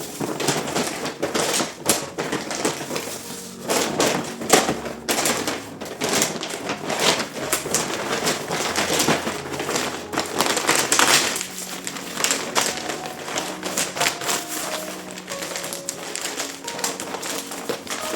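Soft background music over a dense, irregular run of clicks and crackles.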